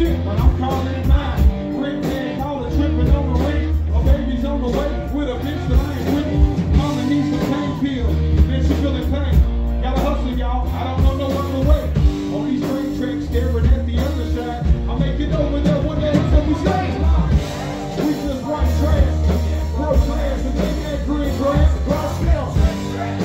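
Loud live music with a heavy, pulsing bass beat and a man's voice singing into a microphone over the PA.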